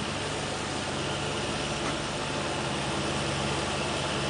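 Small farm tractor engine running steadily as it works a flooded rice paddy, tilling the ground for rice planting.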